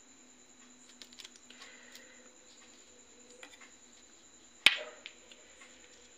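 Faint small ticks of a wire being soldered onto a powered amplifier board, with one sharp, loud click about three-quarters of the way through.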